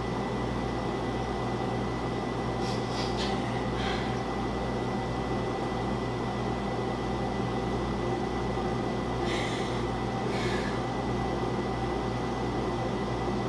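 Steady indoor room hum with a thin, constant high whine. A few brief, soft hissing sounds come about three seconds in and again about ten seconds in.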